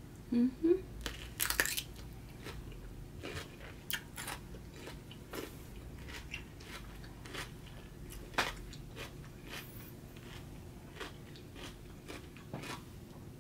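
Close-up eating sounds of a raw Persian cucumber: a loud crunchy bite within the first second, then chewing with irregular wet crunches.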